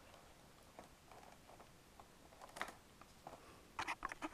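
Faint handling noise of a cardboard and plastic product box: a few scattered soft clicks and rustles, with a short run of clicks near the end.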